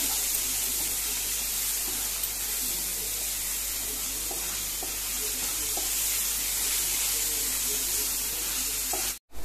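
Chopped onion, capsicum and green chillies with spices and soy sauce sizzling in oil in a non-stick frying pan while being sautéed, with a steady hiss and a few faint scrapes and taps of a wooden spatula. The sound cuts out briefly near the end.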